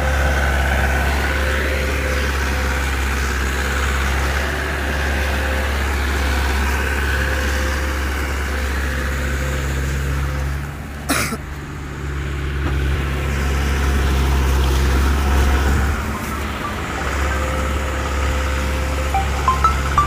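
Mahindra 475 tractor's diesel engine running steadily, with a single sharp knock about eleven seconds in.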